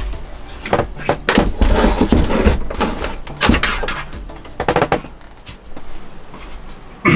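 Knocks, clunks and rattles of a small lithium battery and its cables being handled and fitted into a wooden compartment. The knocks come thick and fast over the first five seconds, then die down.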